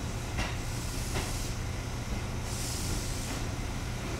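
A Tobu 6050 series electric train standing at a platform with its doors open: a steady low hum, with a short hiss of air about two and a half seconds in and a few light knocks.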